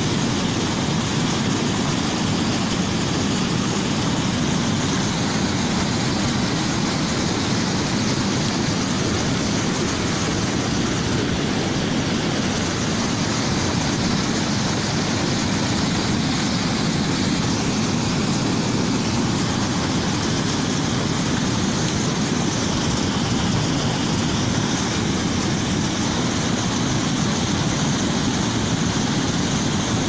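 Water from a full reservoir pouring over a concrete dam spillway and crashing into churning white water below, making a loud, steady rushing sound.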